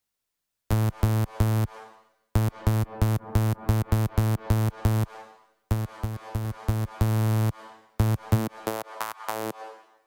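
Parawave Rapid granular software synthesizer playing its 'Bass Saw' bass preset. It plays short, bright, buzzy bass notes, mostly on one pitch, in staccato runs of about four notes a second, broken by brief pauses. One note is held longer about seven seconds in.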